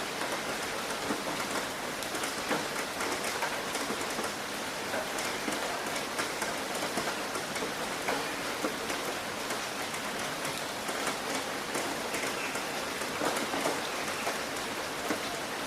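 Steady rain drumming on a roof, a dense hiss of many drops with individual drop hits standing out.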